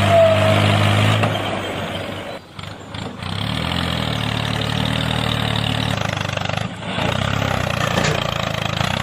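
A tractor-like engine runs steadily at a low pitch. It drops away briefly about two and a half seconds in and again near seven seconds.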